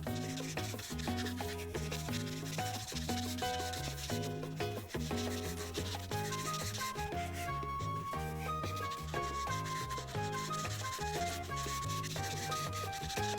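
Prismacolor marker tip rubbing across paper in quick, repeated colouring strokes, filling in a large area, over background music with a stepping bass line and a light melody.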